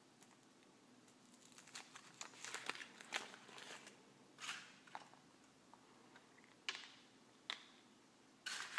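Thin foil wrapper crinkling and rustling as it is peeled off a chocolate surprise egg. It is followed by a few sharp single cracks as the hollow chocolate shell is broken open.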